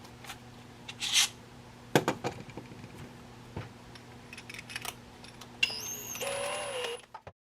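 Small hard objects handled on a workbench: scattered clicks and knocks with a brief scrape about a second in. Near the end there is a short high squeal that changes pitch, and then the sound cuts off suddenly.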